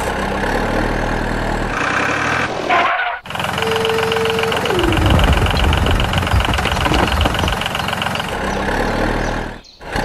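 A truck engine sound effect dubbed over a toy dump truck, running steadily with a short break about three seconds in. Near four and a half seconds a brief steady tone slides downward. From about five seconds a dense rumble with fast ticking runs while the truck tips out its load of miniature bricks.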